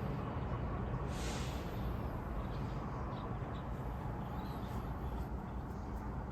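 Steady outdoor background noise with a low rumble. A brief hiss comes about a second in, and a few faint high chirps follow.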